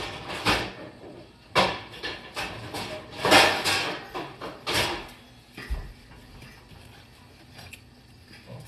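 Off-camera kitchen clatter: a handful of knocks and scrapes in the first five seconds, then quieter, with a sharp knock at the very end as a metal baking sheet is brought to the counter.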